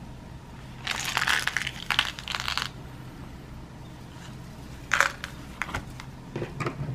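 A plastic blister pack holding a tin of airgun pellets being handled: a crinkling rustle for about two seconds, then one sharp click about five seconds in and a few lighter taps near the end.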